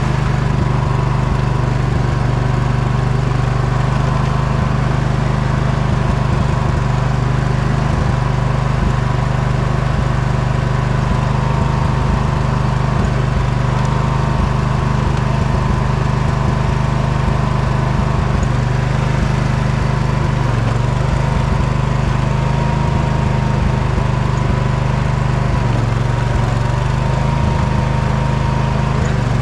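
Poulan riding mower's engine running steadily while pushing snow with a plow. Its pitch sags briefly twice in the last third.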